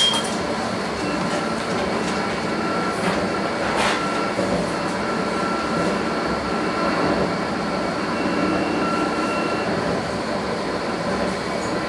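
Interior running noise of a Bombardier Flexity Berlin low-floor tram: a steady rumble and hiss with a faint high-pitched tone that comes and goes. Two short knocks about three and four seconds in.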